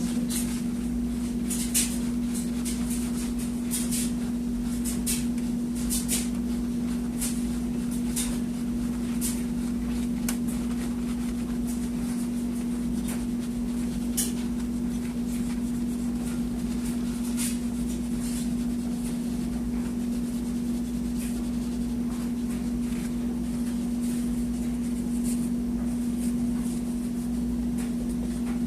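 Paper towel wiping thermal paste off a CPU's metal lid with rubbing alcohol: short, irregular swishes and scrapes over a steady low hum.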